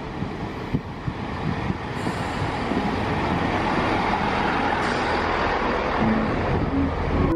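Passenger train pulling into a station and running past close by along the platform, a steady rumble that grows louder as it comes alongside.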